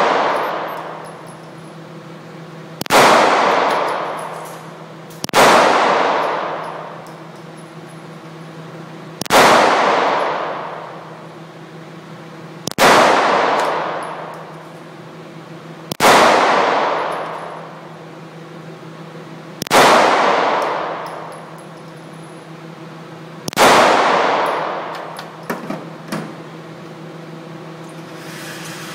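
Glock pistol fired slowly, seven single shots a few seconds apart, each followed by a long echoing ring off the walls of an indoor range. A few light clicks come shortly after the last shot.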